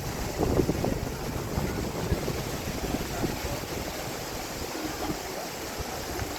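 Wind buffeting the microphone over a steady rushing noise, with a louder gust about half a second in.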